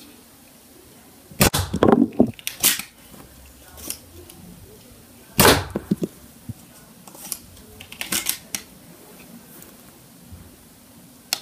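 Nerf Elite foam-dart blaster being worked and fired: sharp plastic clacks and snaps in three clusters, about a second and a half in, about five and a half seconds in and about eight seconds in, with one last click near the end.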